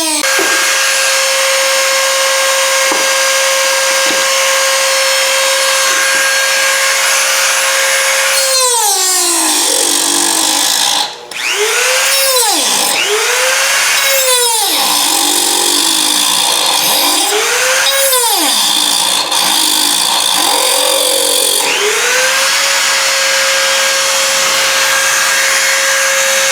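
Dremel rotary tool with a cutting disc cutting into a metal door strike plate. It runs with a steady high whine whose pitch dips again and again as the disc bogs down under load, and it stops briefly about 11 seconds in.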